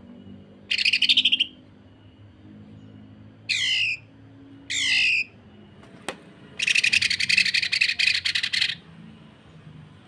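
Greater green leafbird (cucak ijo) singing: a short, rapid buzzy trill, then two quick falling whistled sweeps, then a long, harsh rapid rattle, the rough 'sewing machine' call.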